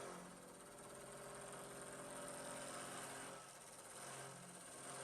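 Faint, steady machine hum made of a few low tones, with one of them fading in and out.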